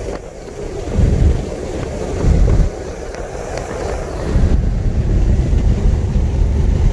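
Road noise inside a moving vehicle's cab, a low rumble of tyres and engine, with wind buffeting the microphone in gusts around one and two seconds in, then a steadier, louder rumble about halfway through.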